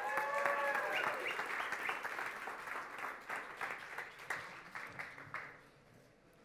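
Audience applauding, the clapping thinning out and dying away about five and a half seconds in.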